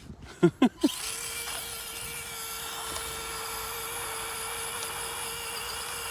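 Small electric motor running at a steady speed with a constant whine, starting about a second in: the Axial SCX24 Deadbolt micro crawler's brushed motor. A few short vocal sounds come just before it.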